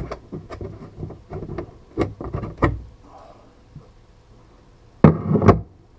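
Sharp clicks and snaps of zip ties being cut off a cracked plastic floor panel of a side-by-side, with the panel knocked about; two louder thumps about five seconds in.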